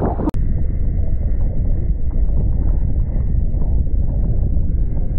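Heavy wind buffeting an action camera's microphone on a kayak, a loud, steady low rumble mixed with the wash of choppy water. It breaks off for an instant about a third of a second in.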